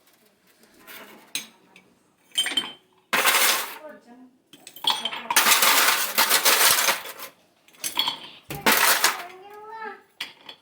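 A metal spoon clinking and clattering against a glass in several bursts, as iced coffee is stirred.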